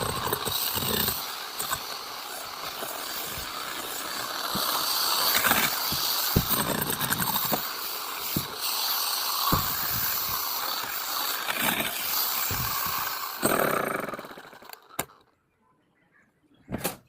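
Power saw cutting into concrete: a rough, steady grinding roar with scattered knocks, which stops about fourteen seconds in. A couple of clicks follow near the end.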